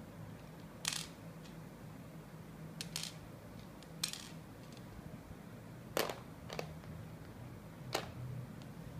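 Plastic bead-puzzle pieces clicking as they are picked up from a table and pressed onto a pegged plastic board: about seven sharp clicks at irregular intervals, some in quick pairs.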